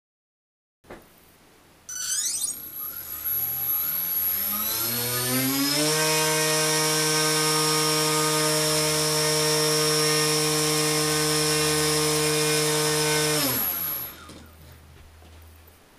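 RaceStar BR1811 2000KV brushless motor spinning a GWS 5x4.3 propeller: it spins up with a rising whine over about four seconds, holds a steady high whine for about seven seconds, then is throttled back and winds down.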